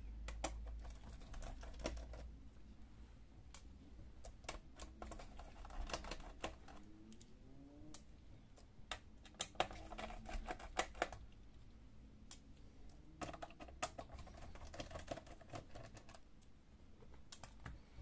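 Light, scattered clicks and clatter of a Toshiba Satellite C660 laptop keyboard's keys and plastic as gloved hands press on and work the keyboard loose from the case, with a couple of faint squeaks around the middle.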